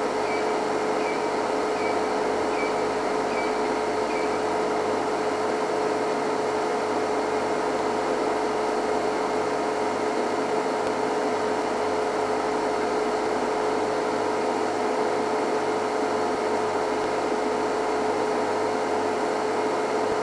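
A steady mechanical hum with one strong held low tone and several fainter tones above it, unchanging throughout.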